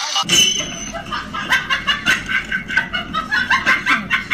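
Rapid, chicken-like cackling in a string of short hoots, several a second, over a low rumble.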